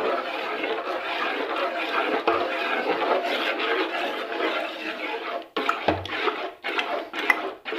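A metal spoon stirring a thick, wet mixture of mashed carrot and semolina in a steel pot, with wet churning and scraping against the pot. The sound is continuous at first, then breaks into separate strokes in the last two seconds or so.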